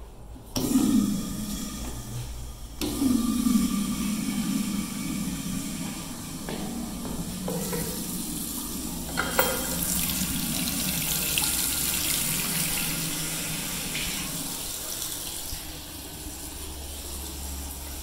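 Commercial flushometer flush valve on a restroom fixture flushing: a sudden loud rush of water that surges again about three seconds in, then runs on steadily and eases off near the end. A single sharp click sounds about halfway through.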